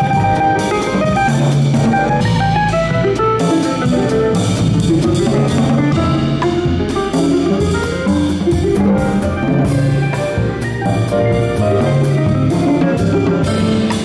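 Small jazz-choro group playing a slow bolero: a ten-string bandolim plucking the melody over piano, an upright double bass and a drum kit with cymbals, without a break.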